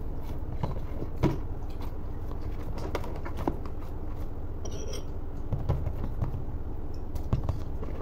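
Hands kneading soft pizza dough inside a clear plastic tub: scattered light knocks and clicks of the plastic tub and a few soft thumps, over a steady low hum.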